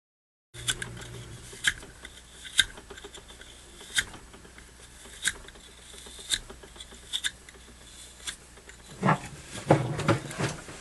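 Extra-fine steel wool scrubbing a Zippo lighter's metal case: a faint scratchy rubbing broken by sharp ticks about once a second, with heavier handling noise near the end.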